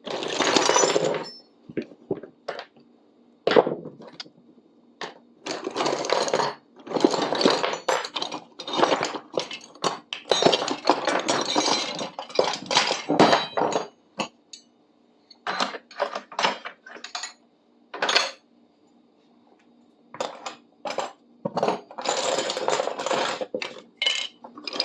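Metal hand tools and parts clinking and clattering as they are handled and dropped together into a bucket, in irregular bursts of strikes with short pauses between.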